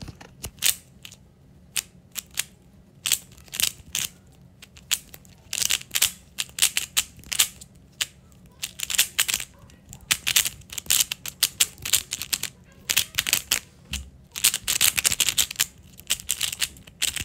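A 3x3 speedcube being turned fast during a timed solve. It makes rapid, irregular plastic clicking and clacking in quick runs, with short pauses between them.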